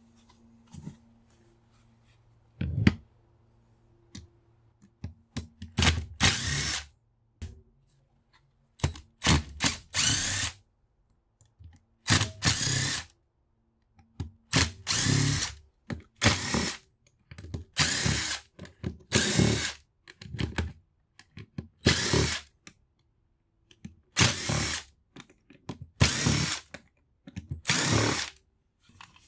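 Power drill-driver run in many short bursts, each under a second, with a second or two between them, as it backs screws out of a power tool's housing during teardown.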